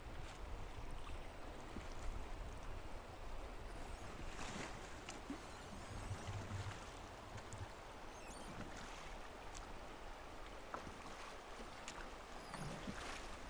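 River current rippling and lapping against a drifting raft, with a few brief small splashes and ticks and a low rumble underneath.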